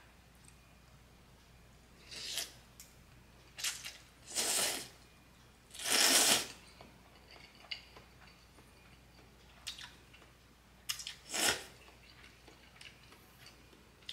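A person slurping ramyun noodles off chopsticks: about five noisy slurps, the two longest near the middle, with small mouth clicks in between.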